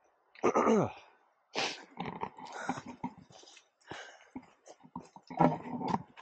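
A man's wordless vocal sounds: a loud 'ooh' that falls in pitch about half a second in, then irregular breathy, mumbled sounds and grunts.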